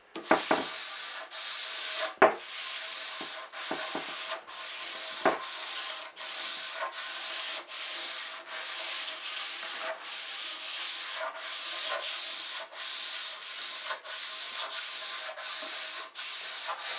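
320-grit sandpaper on a wooden sanding block rubbing back and forth over polyurethane-finished oak in steady, even strokes, about three every two seconds, with a few light knocks of the block in the first few seconds. This is a light scuff-sand between coats, knocking off high spots and raised wood grain.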